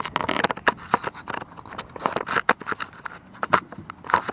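Irregular clicks, taps and light scrapes of hands handling a small camera against the plastic body of an RC excavator, with the model's motors switched off.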